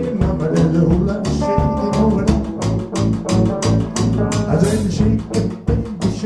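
Blues band music in an instrumental passage with no singing: a bass line under steady drum and cymbal hits, with guitar.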